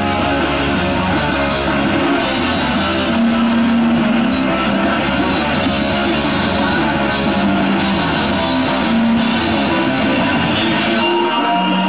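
A hardcore punk band playing loud and without a break, with electric guitars and a drum kit, recorded live in mono.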